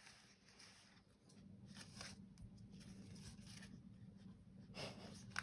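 Near silence with faint rustling and scraping of paper stickers and planner pages being handled, a few soft strokes, the clearest just before the end.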